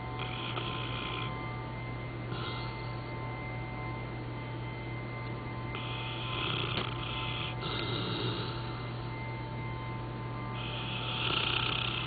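Dog snoring, about five rough breaths a couple of seconds apart, over a steady low lawn-mower drone.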